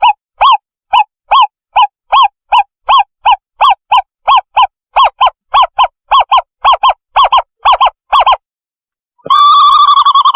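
Owl call played as a decoy lure: short, pitched hooting notes repeated about two to three times a second, quickening a little, then breaking off about eight seconds in. After a short pause a fast, unbroken trill begins near the end.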